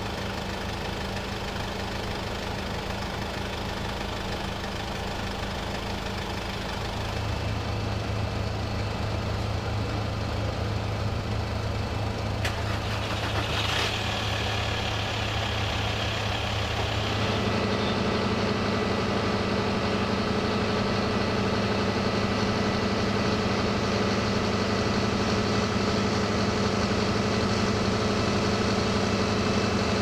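Engines idling steadily, a low even hum. It gets a little louder and shifts in tone about seven seconds in and again near seventeen seconds, with a single click in between.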